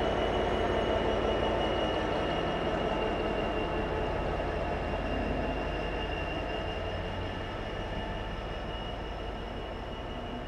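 Freightliner Class 66 diesel locomotive running as it draws away, a steady engine rumble with a thin high whine, fading gradually.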